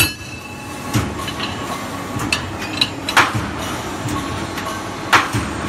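Hydraulic angle-flange punching and cutting machine running with a steady hum, its punch head striking the angle steel strip with sharp metallic clanks at uneven intervals, five or six in all.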